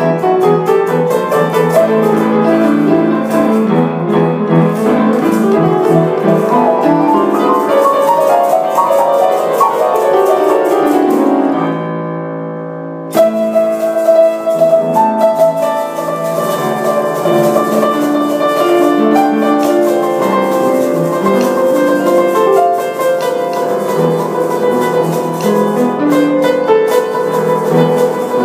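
Upright piano played by hand: melody over chords. About twelve seconds in, the playing settles on a held chord that fades, then a new phrase begins with a loud strike.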